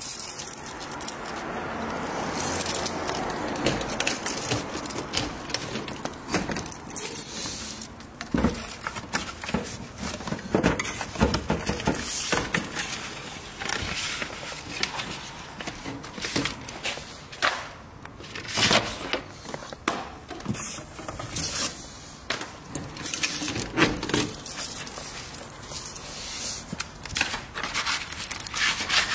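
Keys jangling on a ring and a metal cluster mailbox being unlocked and handled, with irregular clicks, rattles and scrapes.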